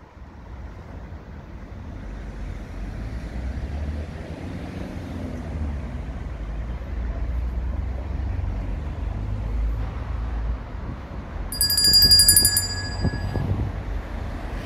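Low rumble of a motor vehicle nearby, growing gradually louder. About three seconds before the end comes a second-long burst of rapid, high electronic beeping, the loudest sound here.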